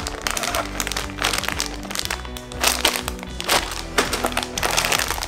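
Background music with repeated crackles and crinkles of plastic kit bags and parts being handled.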